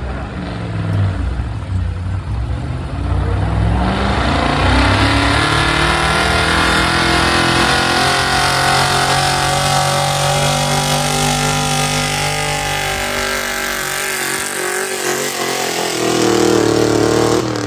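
Gas-engined street pickup truck at full throttle pulling a weight-transfer sled: the engine climbs in revs over the first few seconds, holds high and loud through most of the pull, then drops off near the end as the pull stops.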